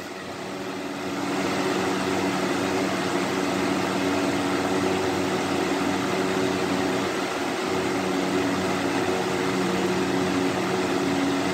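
Lasko B20401 20-inch box fan running on high: a steady rush of air over a low motor hum, not very quiet, growing a little louder about a second in.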